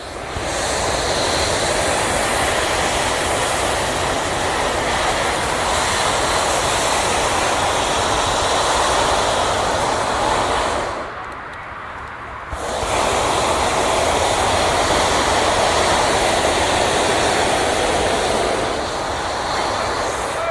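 Hot air balloon propane burner firing: a loud, steady hiss in two long blasts, broken by a short pause about eleven seconds in.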